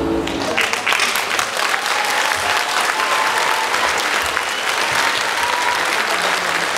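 Theatre audience applauding, dense and steady. The last held note of the music dies away in the first half second.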